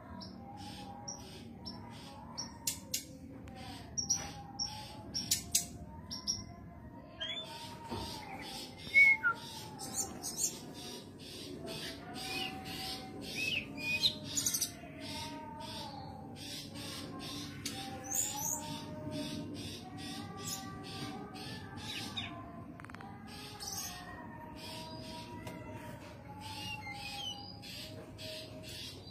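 Female brown-chested jungle flycatcher (sikatan rimba dada coklat) giving runs of short, sharp chirps: the call of a female in breeding condition calling for a male. Lower wavering notes run underneath.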